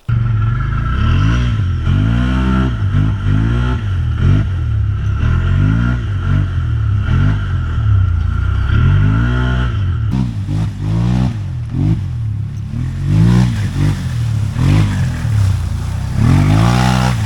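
ATV engine revving up and down again and again while riding over rough off-road ground, with a steady whine alongside for about the first ten seconds.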